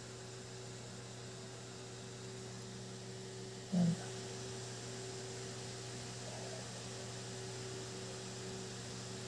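A steady low hum, with a brief low sound about four seconds in.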